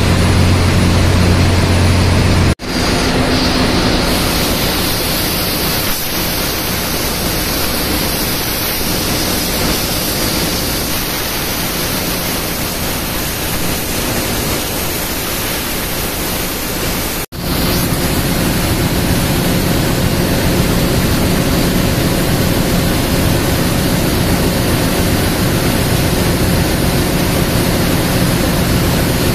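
Ship's engine-room machinery noise: a loud, steady rushing hiss. A deep hum under it stops at a brief dropout about two and a half seconds in, and a second brief dropout comes about 17 seconds in.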